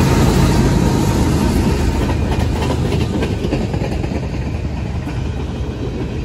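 Freight train cars, empty centerbeam flatcars and tank cars, rolling past close by: a steady rumble and rattle of steel wheels on the rails, easing off slowly.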